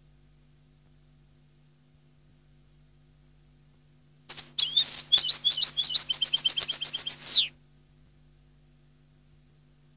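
European goldfinch singing one short phrase of about three seconds, starting about four seconds in: quick varied twittering notes running into a fast trill of repeated notes that ends in a falling sweep.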